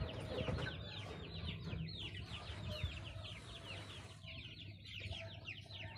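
Birds in a chicken pen: a steady, fast run of short, high, falling peeps, several a second, with lower sounds underneath.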